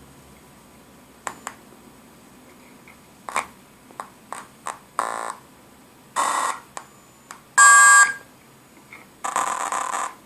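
Ciat-Lonbard Grassi touch organ sounding bright electronic tones through its two small speakers as fingertips touch its metal touch pads. A few brief clicks come first, then four separate notes of about half a second each. The loudest is just before eight seconds in, and the last note, near the end, is held longer.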